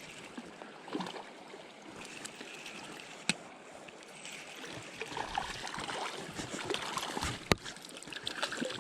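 River water flowing as a steady rush, with two sharp clicks, one about three seconds in and a louder one about seven and a half seconds in, and some irregular rustling in the second half.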